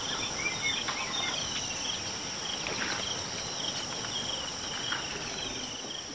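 Evening bush insect chorus: a steady high-pitched trill with a pulsing chirp beneath it, and a few short chirps over the top.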